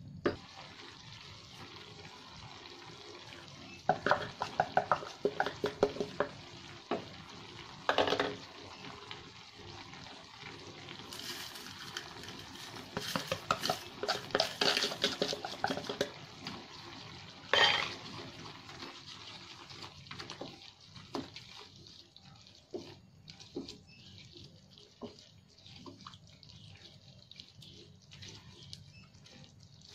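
A wooden spatula stirring and scraping shrimp through thick, simmering sauce in a nonstick frying pan. Quick runs of clattering strokes come a few seconds in and again in the middle, with a single sharp knock against the pan now and then.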